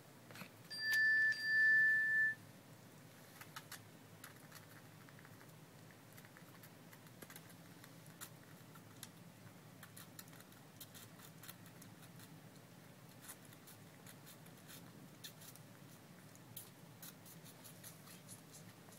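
Two loud, steady, high-pitched beeps about a second in, the second longer. After them come faint, quick clicks and smacks of a baby squirrel sucking milk from a feeding syringe.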